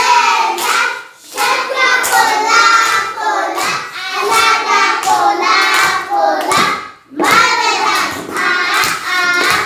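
A class of young children singing a short praise chant together, clapping their hands in rhythm.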